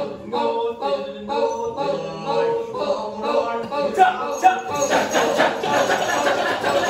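Balinese kecak chant, a male chorus chanting a cappella in short melodic phrases. About five seconds in it grows denser and fuller as more voices join.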